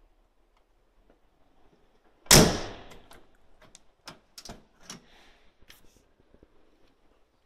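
A single loud thump about two seconds in, dying away over half a second. Several lighter clicks and knocks follow over the next few seconds.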